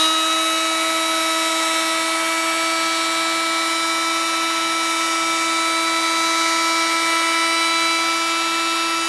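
Electric heat gun running steadily, its fan motor giving a steady whine over the hiss of blown hot air, as it heats a motorcycle wheel hub so the hub expands to take a frozen bearing.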